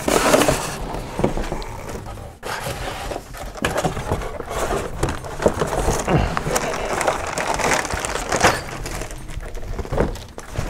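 Handling noise of a cardboard box being opened and a plastic-bagged RC monster truck lifted out: irregular rustling and scraping of cardboard with crinkling of the plastic bag and a few light knocks.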